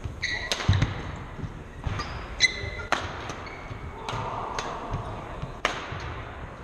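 Badminton rally: racket strings hitting the shuttlecock several times, about a second apart, with shoes squeaking on the wooden court floor.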